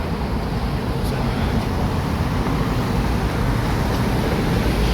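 Steady street traffic noise: an even rumble of passing vehicles, strongest in the low end.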